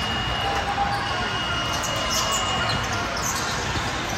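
Basketball game sounds: a ball bouncing on the court under a steady hall din, with a few short high squeaks about two and three seconds in.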